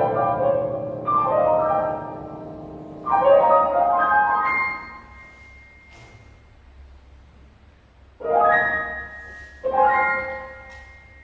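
Solo piano improvising: chords struck in the middle and upper register and left to ring, three in the first few seconds, then a pause of about three seconds before two more near the end.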